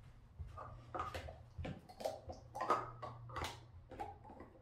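Cocker spaniel moving around with a plastic stacking cup in its mouth and setting it on a stack of cups: a string of short, soft snuffs and light taps, about two a second.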